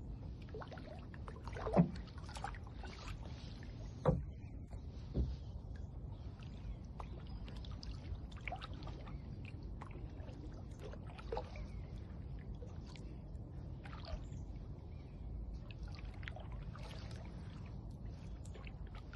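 Water trickling and dripping around a canoe moving on calm water. Small clicks run throughout, with three sharper knocks about two, four and five seconds in.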